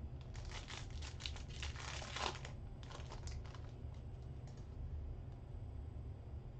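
2022 Select football trading cards being handled and shuffled by hand: quick clicking and crinkling as the cards are flipped and slid, busiest in the first three and a half seconds and sparser after. A steady low hum runs underneath.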